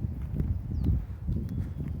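Strong wind buffeting the microphone: a low, uneven rumble that swells and falls in gusts.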